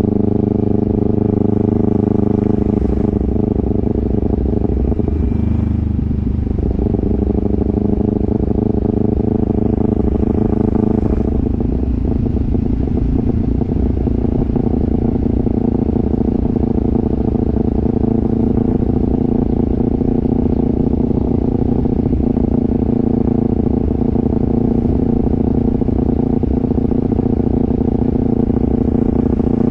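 Kawasaki Ninja 300's parallel-twin engine running under way while riding. The engine note shifts a few times in the first dozen seconds and then holds steady.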